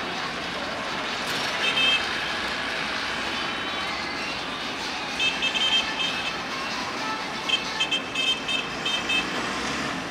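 Steady street traffic noise with several quick runs of short, high horn toots: once about two seconds in, again around the middle, and a longer run near the end.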